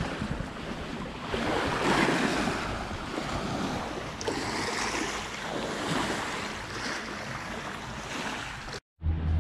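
Lake water splashing and lapping around an inflatable kayak, with wind buffeting the microphone. The noise swells and eases every second or two.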